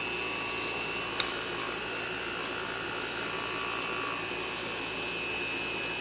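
Small hermetic refrigerator compressor, its shell cut open and run as a vacuum pump, running steadily with a low hum and a steady high tone. A single sharp click about a second in.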